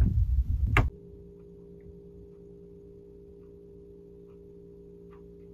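A loud low rumble that ends with a sharp click just under a second in, then a steady low hum of a few held tones with faint, scattered ticks.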